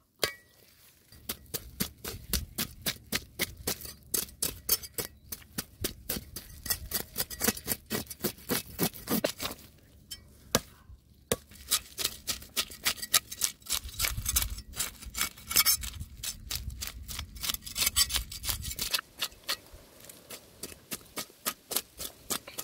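Cleaver blade scraping the scales off a snakehead fish on a wooden chopping block: quick, repeated scraping strokes, about three or four a second, with a brief pause around the middle.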